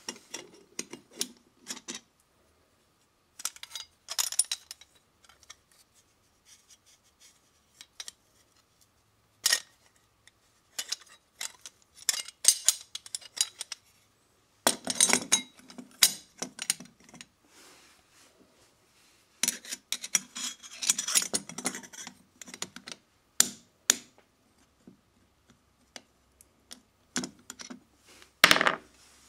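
Metal parts of a garbage disposal's sink mounting assembly (stainless sink flange, mounting rings and screws) being handled: scattered clinks, rattles and scrapes in irregular bursts, the loudest near the end.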